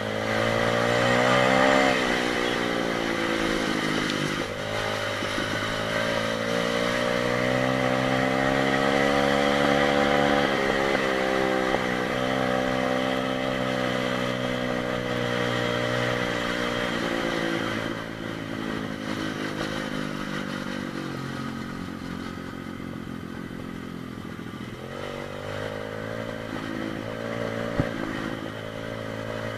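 125 cc pit bike engine running under a rider, its pitch climbing and dropping again and again as the throttle is opened and closed. Past the middle it settles lower and quieter for several seconds, then picks up again, with a single sharp click near the end.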